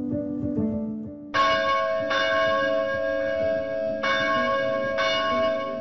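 A church bell ringing, struck four times starting about a second and a half in, each strike ringing on into the next. Before the first strike there is soft instrumental music.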